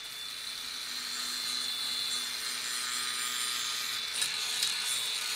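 Angle grinder running at a steady high whine while its disc grinds paint off a steel frame tube down to bare metal, readying it for welding, with a couple of light clicks about four seconds in.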